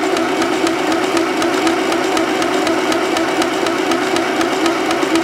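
Mini sewing machine running at slow speed on its toggle switch to wind a bobbin: a steady electric-motor whir with a fast, even clatter from the mechanism.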